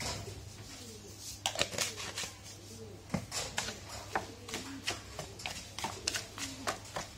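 Wooden chopsticks clicking against a bowl while stirring aloe vera with sugar, quick uneven taps several times a second, starting about a second and a half in. Just before that, a brief soft pour of sugar into the bowl.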